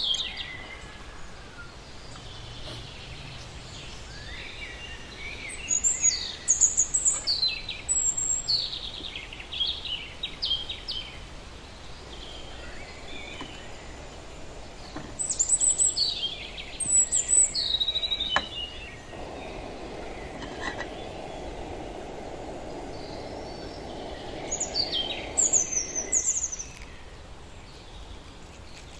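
Birds singing: three bouts of quick, high, downward-sweeping chirps several seconds apart, over a steady outdoor background hum.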